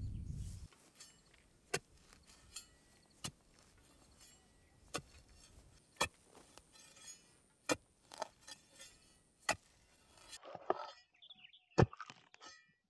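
A series of single sharp knocks and thuds at uneven intervals, a second or so apart, over a faint hiss. The hiss cuts out abruptly about ten seconds in, and the last two knocks are the loudest.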